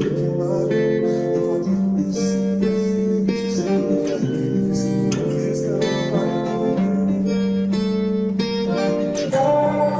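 Background music: a song with plucked acoustic guitar.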